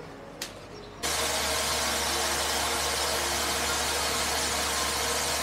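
Kitchen tap running from its spray head into a stainless steel pot in the sink, a loud steady rush of water that starts abruptly about a second in.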